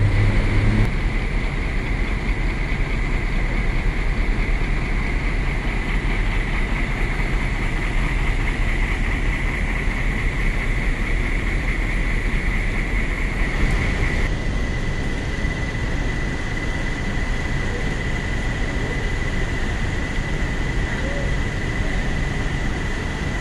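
Steady rumble of idling diesel coach buses queued close together, with a thin steady high whine over it that becomes fainter a little past halfway.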